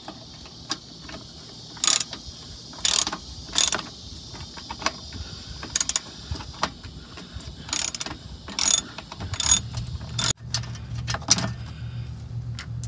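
Hand ratchet clicking in short, irregular runs as it backs out a 10 mm bolt holding the car's underbody service cover. A low steady hum comes in about nine seconds in.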